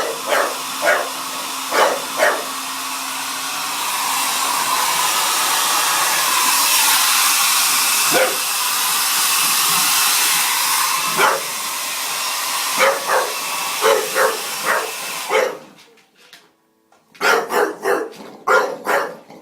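A bulldog barking repeatedly, in short sharp barks, at a running hairdryer whose steady blowing fills the background. The dryer sound stops abruptly about three-quarters of the way through, and after a second of near silence the barking starts again.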